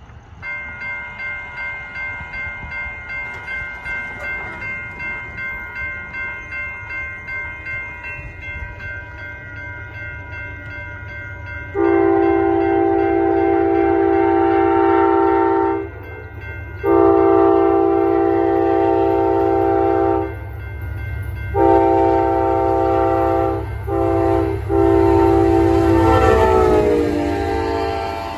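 Grade-crossing warning bell ringing about twice a second as an Amtrak P42 diesel locomotive approaches, its low rumble building. About 12 seconds in the locomotive's horn sounds the grade-crossing signal: two long blasts, a short one, and a final long one whose pitch drops as the locomotive passes the crossing.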